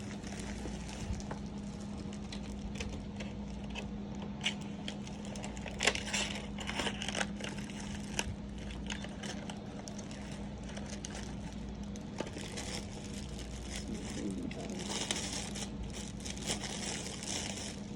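Plastic packaging crinkling and rustling in irregular bursts as parcels are handled and unwrapped, over a steady low hum.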